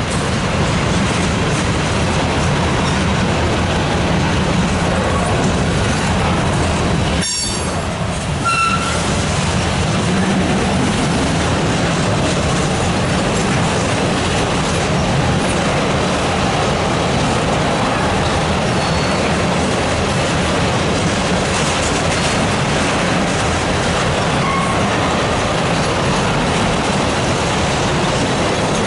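Freight train of tank cars rolling past close by: the steady rumble and clatter of steel wheels over the rails, with a few brief high-pitched wheel squeals.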